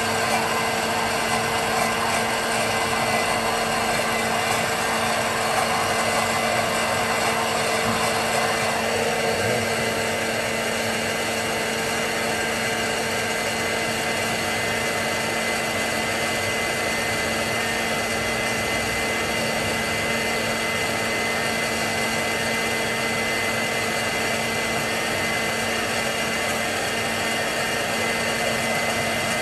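Electric motor of a juice-bar appliance whirring steadily with a constant hum, its tone shifting slightly about nine seconds in.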